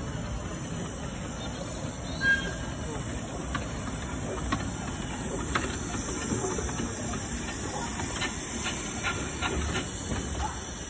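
A small narrow-gauge steam locomotive running slowly past along the platform, with steam hissing and irregular clicks and clanks from its wheels and motion. A short, sharp squeal comes about two seconds in.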